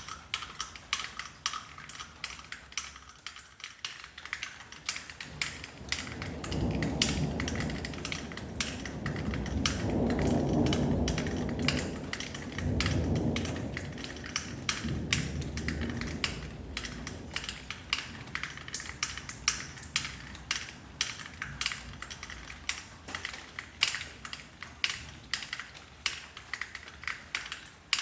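Sharp raindrops dripping and tapping several times a second, with a low rumble of thunder that builds from about six seconds in, is loudest a little after ten seconds, and dies away by the middle.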